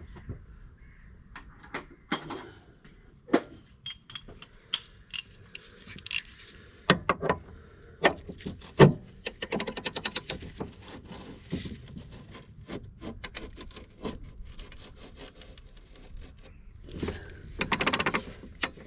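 Stud extractor being worked round on a broken battery clamp stud: scattered sharp metal clicks and scrapes, with a run of rapid clicking around the middle and another near the end.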